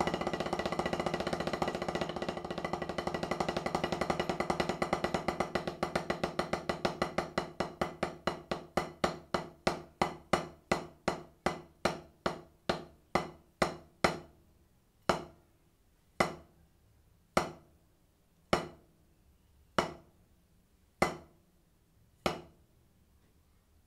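Wooden drumsticks playing a double stroke roll on a rubber practice pad set on a snare drum. The roll starts fast and continuous, then gradually slows until single strokes come a little over a second apart.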